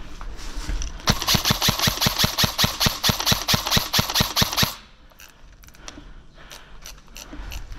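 Airsoft gun firing a rapid, evenly spaced string of about twenty shots, roughly six a second, for about three and a half seconds, then stopping.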